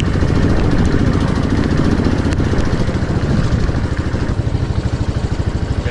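A vehicle engine running steadily with a fast, even pulsing that grows more distinct about four seconds in.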